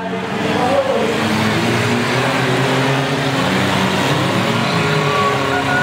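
Several demolition-derby cars' engines running and revving at once in a steady, loud din, their pitch rising and falling.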